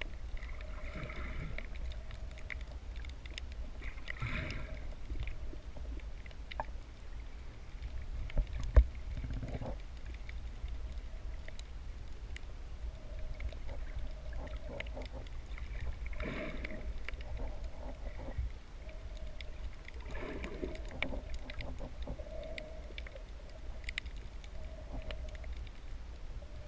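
Underwater sound picked up by a camera held below the surface while snorkeling: a steady low rumble of water with a faint hum that comes and goes, and a few swells of swishing water movement. A single sharp knock stands out about nine seconds in.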